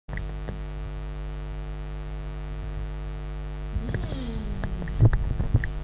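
Steady electrical mains hum in the microphone's audio line. About four seconds in there is a short falling vocal sound, followed by a few light clicks and knocks.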